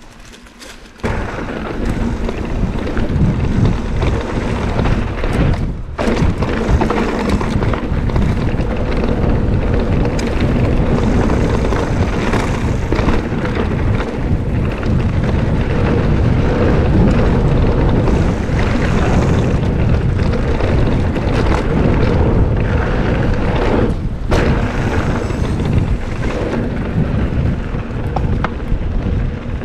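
Strong wind buffeting the microphone as a mountain bike rolls along dirt singletrack, a loud, even low rumble mixed with tyre and trail noise. It comes in about a second in and drops out briefly twice.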